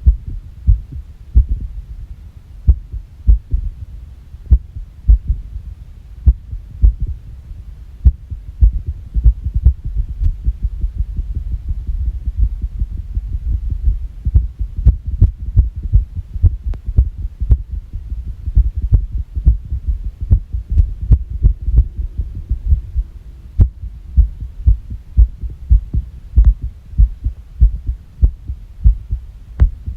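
A human heartbeat heard as low thuds over a steady low hum, coming at an uneven pace. The beats crowd closer and more erratically through the middle stretch, then settle into a steadier rhythm near the end. This is an irregular heart rhythm.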